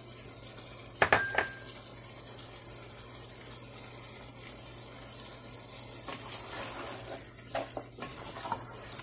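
Mutton and potato curry cooking in a pan with a steady hiss, and a sharp clink about a second in. In the last few seconds a spatula stirs it, with knocks and scrapes against the pan.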